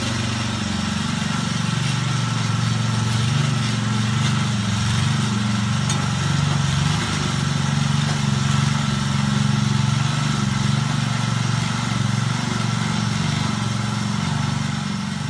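Garden tiller's small Briggs & Stratton four-stroke engine running steadily under load as the tines churn the soil, its pitch wavering slightly. It runs properly on its repaired carburettor diaphragm.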